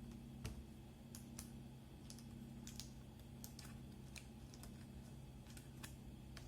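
Faint, scattered small clicks and taps of the laptop's internal plastic parts and drive clip being handled and pressed into place, over a steady low hum.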